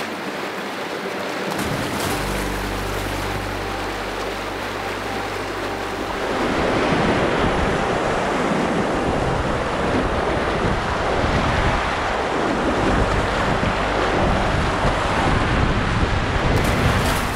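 Whitewater rapids rushing and churning, heard up close from a canoe running them, with wind rumbling on the microphone. The rush grows louder about six seconds in.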